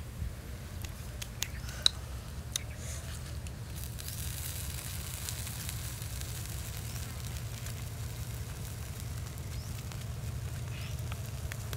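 Pork rib roasting on wooden sticks over charcoal embers: a few sharp crackles and clicks in the first seconds, one louder about two seconds in, then a faint steady sizzling hiss, over a constant low rumble.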